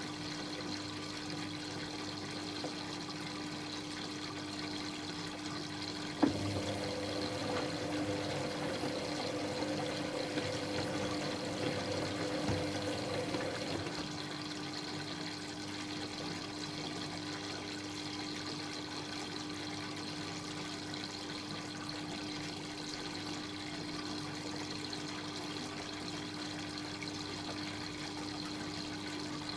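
Dyson Contrarotator CR01 washing machine mid-cycle, with water running through it over a steady machine hum. A sharp click about six seconds in is followed by several seconds of louder water before it settles back.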